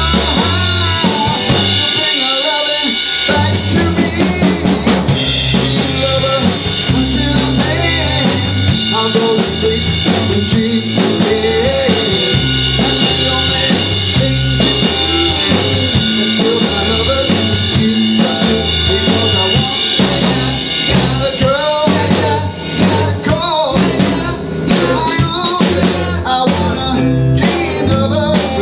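A small rock band playing live together: a drum kit, electric bass and electric guitars, at a steady beat.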